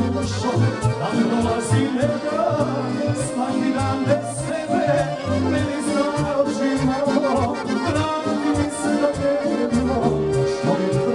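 Chromatic button accordions, one a Dallapè, playing a tune with chords and a bass line, while a man sings into a microphone.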